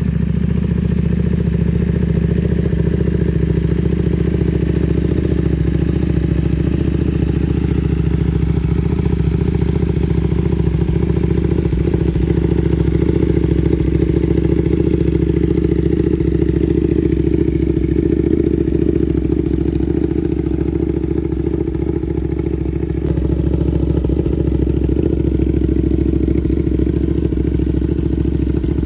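Ducati Panigale V2's 955 cc V-twin running through a full titanium Vandemon exhaust, idling steadily, its pitch settling slightly lower in the first few seconds.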